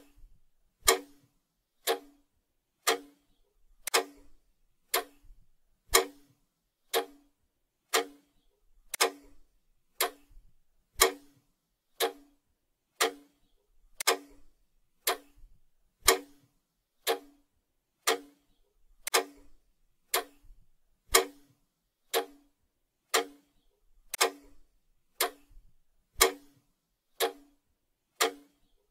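Clock ticking steadily once a second, a countdown-timer sound effect marking the time left to answer a question.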